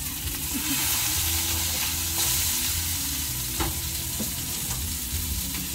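Burger patties and a sausage sizzling steadily on a flat-top steel griddle, with a couple of short clicks of a metal spatula against the griddle a little past halfway.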